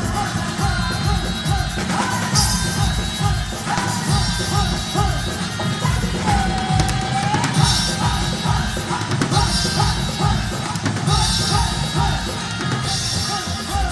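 Live pop music played loud through an event sound system: a heavy drum beat with deep bass under a female singer's ornamented, wavering vocal line, with one long held note about halfway through.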